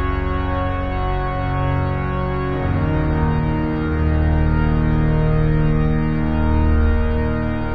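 Pipe organ playing slow, sustained full chords. About two and a half seconds in, the harmony moves to a lower, louder chord with deep bass notes held under it.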